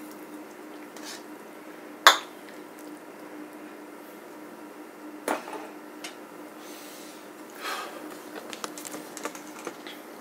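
A ladle clanking against a stainless steel stockpot of soup: one sharp clank about two seconds in, another about five seconds in, and softer scrapes and knocks later, over a faint steady hum.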